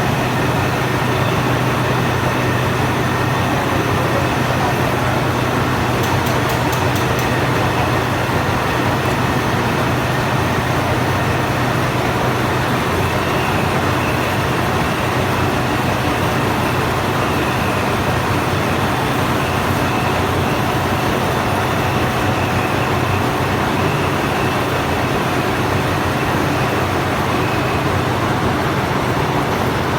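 Lathe running steadily while machining a JCB hub: a continuous, even machine noise with a low hum underneath. A faint steady higher tone comes in about halfway through, as the cut goes on.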